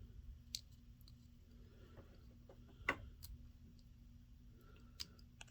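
Scattered small plastic clicks and taps as parts of a plastic action figure are handled, with a tiny jaw piece being worked into the figure's head. About five separate clicks, the loudest about three seconds in.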